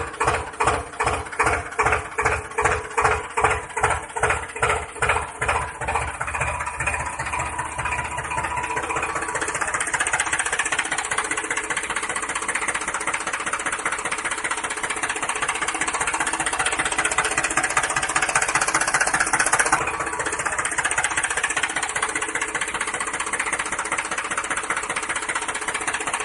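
Tractor engine sound, chugging in slow even beats about two a second, then settling after about eight seconds into a steadier running.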